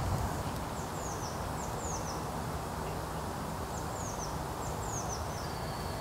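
Woodland ambience: a songbird sings four short phrases of quick, high, falling chirps, the last ending in a held high note, over a steady low rushing background.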